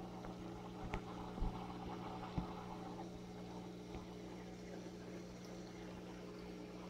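Steady low electrical hum of aquarium equipment such as a pump motor, with three short knocks in the first two and a half seconds.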